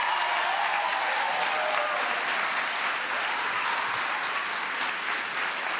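Congregation applauding: steady, dense clapping from a large crowd in a church hall, with faint voices calling out over it, easing slightly near the end.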